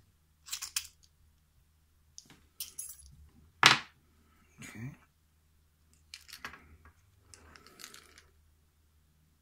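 A brass lock cylinder and its key being handled, giving a series of short metallic clicks and clinks, about half a dozen. The loudest is one sharp click a little over three and a half seconds in.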